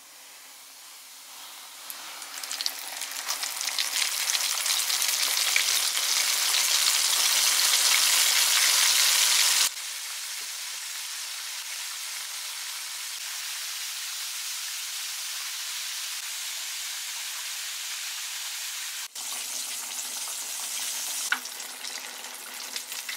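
Batter-coated squid deep-frying in hot oil in a wok: a sizzling hiss that builds over the first several seconds after the squid goes into the oil, then drops suddenly about ten seconds in to a steadier, quieter sizzle. A single click near the end.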